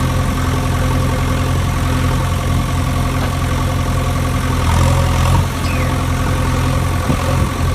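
Steady engine idling sound, a low even hum with a slight swell about two thirds of the way through.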